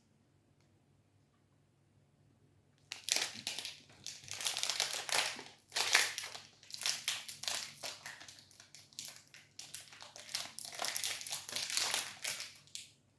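Plastic protein-bar wrapper crinkling as it is handled and unwrapped, in a run of irregular rustling bursts starting about three seconds in.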